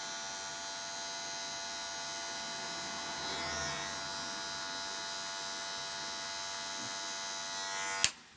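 Wahl Magic Clip cordless hair clipper running with a steady motor hum while cutting hair on the side of the head. Just before the end it is switched off with a sharp click and the hum stops.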